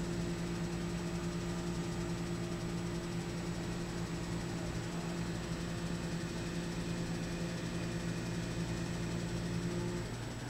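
Heavy vehicle engine idling with a steady hum. Part of the hum cuts off near the end.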